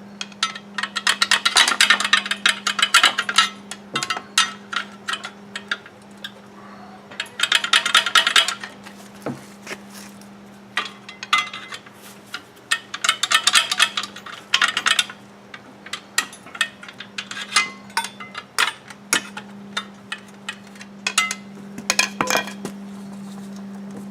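Metal hand tools clicking and clinking on a car's engine hardware: three long runs of rapid clicks, with scattered single clinks between and after. A steady low hum sits underneath.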